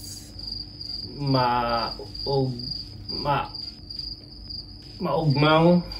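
Short, hesitant vocal sounds from a person trying to recall a phrase, over a steady, high, rapidly pulsing chirp that starts abruptly and keeps an even rhythm of about three pulses a second.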